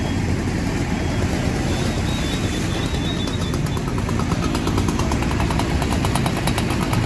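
Steady, loud engine-like rumble and rush, with a fast, even ticking that comes in about halfway through and gets quicker.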